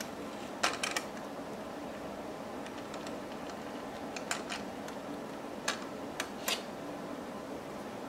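Small metal clicks and taps, about seven in all, as a CPU cooler's metal mounting brackets and screws are handled and fitted around the processor socket, over a steady background noise.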